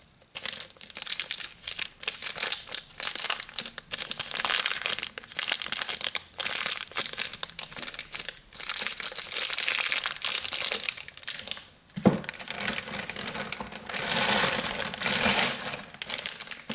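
Fingers scratching and crinkling the wrapper of a bar of Super Popeye soap: a continuous crackling scratch broken by a couple of short pauses. There is a sharp knock about twelve seconds in, and the crinkling goes on after it.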